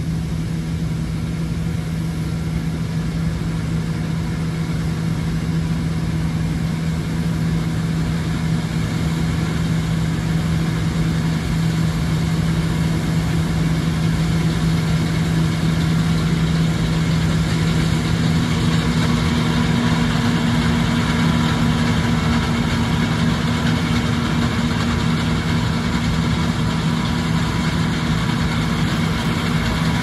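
John Deere T560i combine harvester and a John Deere tractor running together as the combine cuts wheat and unloads grain into the tractor's trailer: a steady engine drone with a strong low hum. In the second half it grows a little louder and a second, higher hum joins as the tractor draws near.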